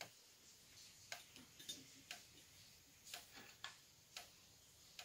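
Near silence broken by a scattering of faint, irregular small clicks and taps from gloved hands handling wire inserts in a metal fishing-sinker mould.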